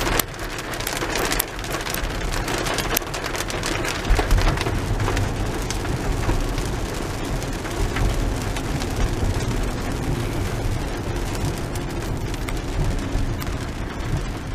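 Heavy rain on a moving car, heard from inside the cabin: a dense patter of drops striking the windshield and body over a steady hiss, with a low rumble underneath from about four seconds in.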